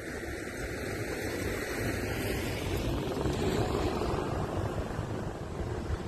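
Wind buffeting the microphone, a gust that swells to its loudest about halfway through and then eases.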